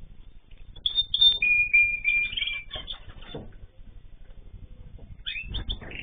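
Aviary finches chirping: a cluster of short chirps and a few held whistled notes starts about a second in, then a quieter spell, and more chirps near the end.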